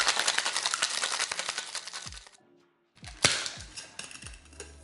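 Ice cubes rattling fast and hard inside a stainless steel cocktail shaker as a drink is shaken, stopping about two seconds in. After a short gap comes a single sharp knock on the tins, followed by a few lighter knocks.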